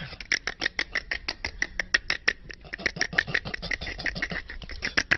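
Rapid, even run of mouth clicks made by a man, about eight a second, without any words.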